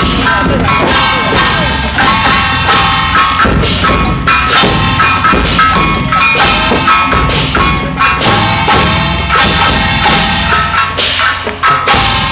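Traditional Taiwanese temple percussion: drums beating a rhythm with ringing, clashing gongs and cymbals.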